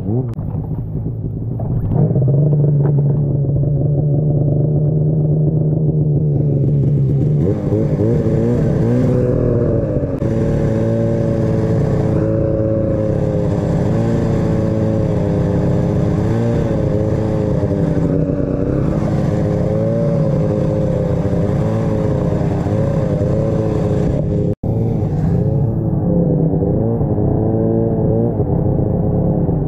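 Arctic Cat snowmobile engine humming steadily at low revs, then throttled up from about seven seconds in and running under load through deep snow, its pitch rising and falling with the throttle. The sound drops out for an instant near the end.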